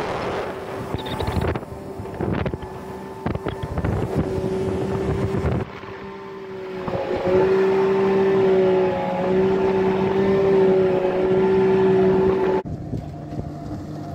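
Sea-Doo jet boat's engine running at speed, a steady drone with wind buffeting the microphone and spray from the wake. About seven seconds in the engine note climbs and grows louder as the boat is pushed harder. Near the end the sound cuts abruptly to the boat heard faintly from across the water.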